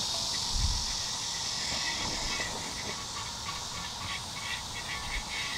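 Silicone oil brush scrubbed back and forth over a griddle to spread cooking oil, in quick, even strokes about three a second starting about two seconds in. Under it is a steady high insect hiss that fades away.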